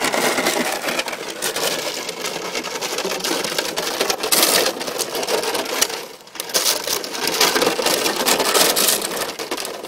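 Empty plastic water bottles crinkling and clattering as a six-week-old Belgian Malinois puppy pushes through a trough full of them while a white plastic jug is shaken and knocked against them. A dense, continuous crackle with a brief lull about six seconds in.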